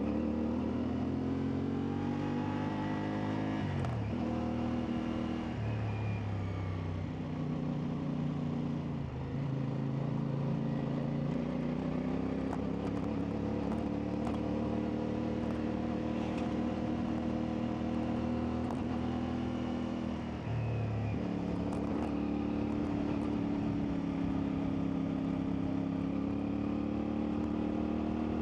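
CfMoto 450MT's parallel-twin engine running under load while riding off-road, its revs climbing steadily and then dropping sharply about four, nine and twenty-one seconds in as the throttle is rolled off or a gear is changed.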